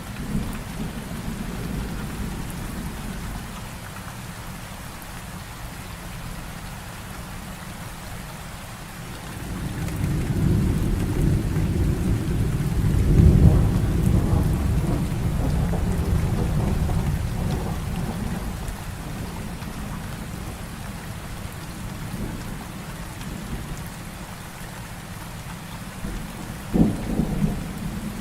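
Heavy rain falling steadily, with a long roll of thunder that builds about nine seconds in, peaks a few seconds later and rumbles away, and a sharper thunder crack near the end.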